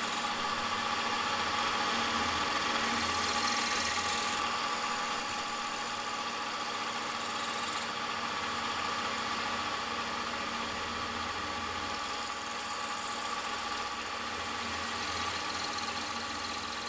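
Milling machine spindle running steadily while an 11/64-inch twist drill cuts down through a finned model-engine cylinder. A high whine shifts in pitch and strength every few seconds.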